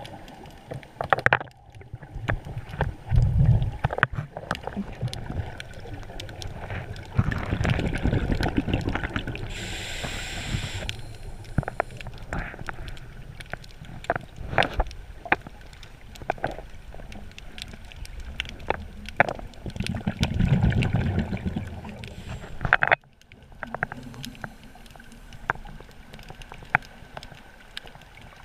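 Underwater sound of a scuba diver breathing through a regulator: a few rumbling bursts of exhaled bubbles lasting a second or two each, a short hiss of inhaled air, and scattered sharp clicks throughout.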